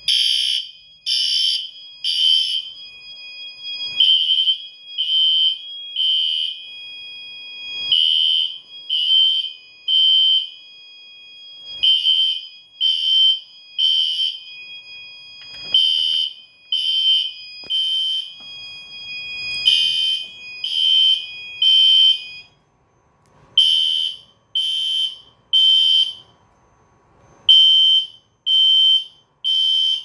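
System Sensor fire alarm horn-strobes on a Notifier system sounding the temporal-three evacuation pattern: three blasts about a second apart, a pause, then repeating. Under the blasts a steady alarm tone runs until about two-thirds of the way through, then stops, leaving only the three-blast pattern.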